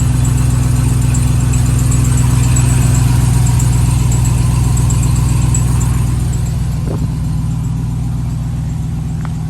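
Ram TRX's supercharged 6.2-litre V8 idling steadily after a cold start, heard from underneath the truck, with a light rattle underneath that the owner suspects may be a loose skid plate. The idle eases off slightly about six seconds in.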